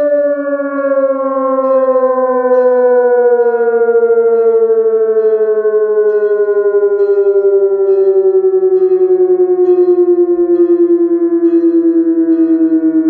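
SES 1200 fire siren sounding a test alarm. One long tone slides steadily lower in pitch, with a pulsing in its loudness that grows more marked as the pitch drops.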